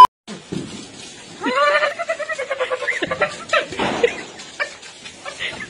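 A man yelling in a wavering voice about a second and a half in, with more shouts and scattered crackles and pops through the rest.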